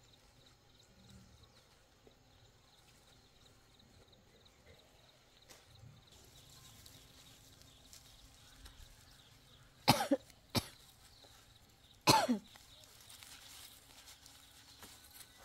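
Two short, sharp coughs about two seconds apart, with a brief click between them, over faint background noise.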